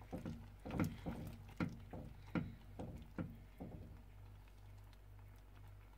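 Ladle stirring a pot of thick melted Swiss cheese fondue, scraping and knocking against the pot about two or three times a second for the first few seconds, then stopping, over a faint steady low hum.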